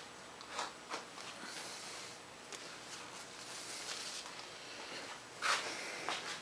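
Faint handling noise at a workbench: a few light clicks and rustles over a steady low hiss, the clearest near the start and one more just before the end.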